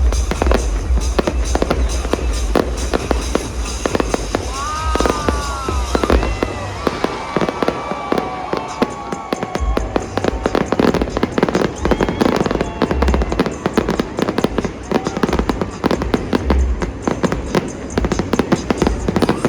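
Aerial fireworks going off continuously: dense crackling and popping over repeated deep booms, with a few whistling tones bending in pitch about five seconds in.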